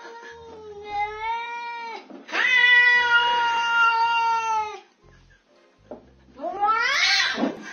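Domestic cat yowling in long, drawn-out calls: two held yowls, the second louder, then after a short pause a shorter call that rises and falls near the end.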